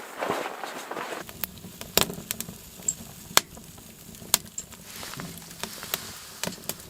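Firewood crackling in a wood stove, with scattered sharp pops over a low steady background, after about a second of wind noise at the start.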